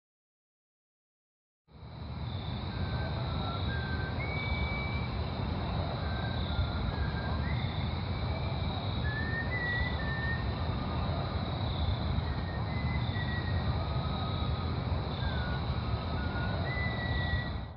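Dead silence for nearly two seconds, then a steady woodland ambience: a continuous high insect trill with a regular pulsing beat, scattered short bird chirps, and a low rumbling noise underneath, cutting off at the end.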